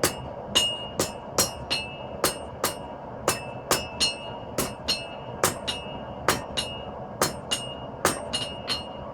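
Hammer blows on hot 5160 spring steel over an anvil, drawing out the knife's tang: two or three ringing strikes a second, often in quick pairs, with a steady rushing noise underneath. The hammering stops near the end.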